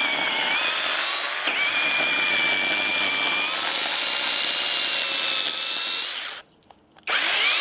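Small 21 V cordless electric chainsaw running and cutting a small branch, a steady motor whine whose pitch steps up about halfway through. The motor stops about six seconds in, then starts again near the end with a rising whine as it spins up.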